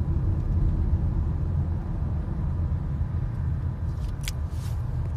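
Steady low rumble of a car heard from inside its cabin. A couple of short faint rustles come about four seconds in.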